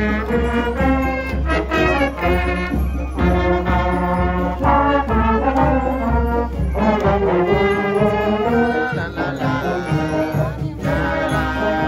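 High school marching band playing as it marches past, led by trombones with trumpets and saxophones.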